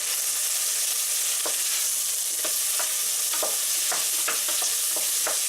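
Mushrooms and onions sizzling in hot oil in a frying pan, a steady high hiss, with a utensil knocking and scraping in the pan now and then as they are stirred.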